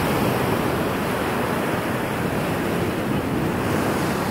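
Ocean surf washing up onto a sandy beach in a steady wash of noise, with wind buffeting the microphone.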